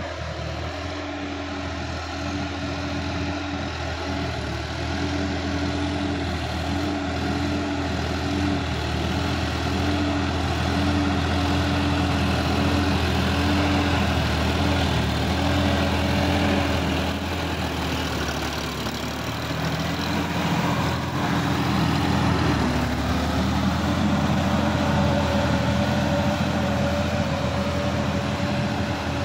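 Sonalika DI-50 RX tractor's diesel engine running steadily under load as it works through a flooded, muddy paddy field. It grows louder as the tractor comes closer, and the engine note shifts a little past halfway as it turns.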